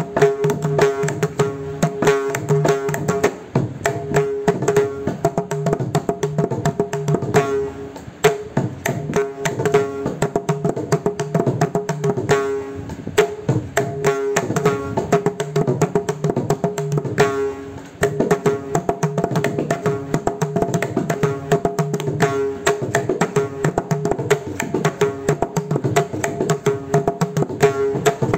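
Solo mridangam played with the hands: a fast, dense stream of strokes on the tuned right head, ringing at a steady pitch, over deep bass strokes on the left head, with two short breaks. The rhythm is a mora–mukta pattern in khanda jati triputa tala.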